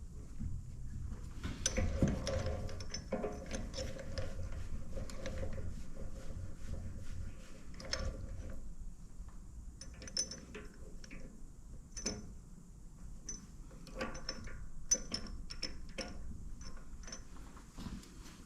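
Irregular mechanical clicks and ticks of metal parts being worked by hand at a lathe set up to cut an axle spacer to length.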